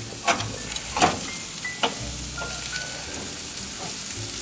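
Metal grill tongs clack against a gas grill's grate three times, the second the loudest, as seasoned tri-tip steaks are turned. The steaks sizzle steadily underneath.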